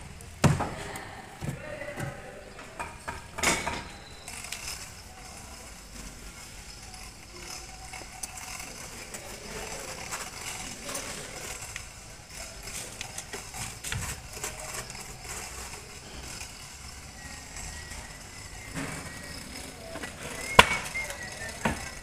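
A few hammer blows on an autoclaved aerated concrete (hebel) block in the first four seconds. Then a low background with faint voices, and one sharp knock near the end.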